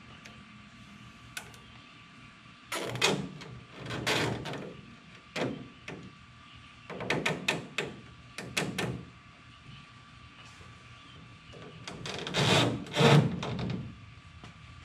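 Plastic and metal clattering and scraping as an aftermarket mesh grille is handled and worked into place on a pickup's front end. It comes in several irregular bursts, and the loudest is near the end.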